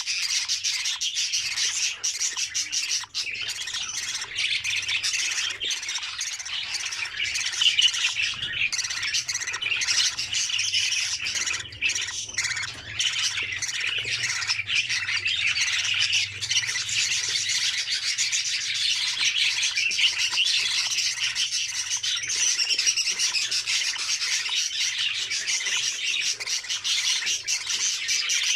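Budgerigars chattering and squawking, a dense continuous din of many overlapping high, scratchy calls.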